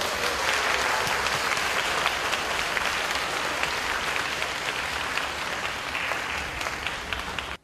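Audience applauding, many hands clapping at a steady level, cut off abruptly near the end.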